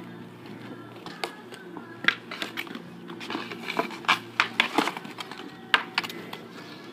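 Roller hockey sticks clacking against the asphalt and against each other during a shot on the goalie: a run of sharp knocks, thickest about four to five seconds in.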